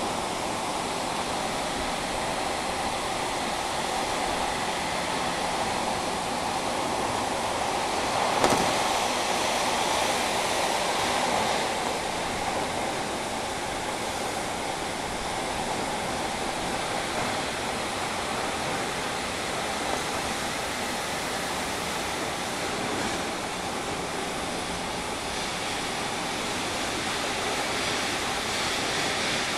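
Interior running noise of a JR Kyushu 305 series electric train in a subway tunnel: a steady roar of wheels on rail, with the air-conditioning blowing. A single sharp knock comes about eight seconds in.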